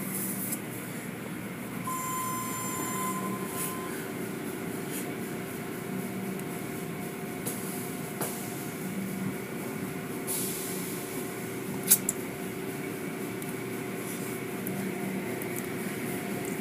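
Automatic tunnel car wash machinery running: a steady hum with a hiss of spraying water. A brief high tone sounds about two seconds in, and there are two sharp clicks about twelve seconds in.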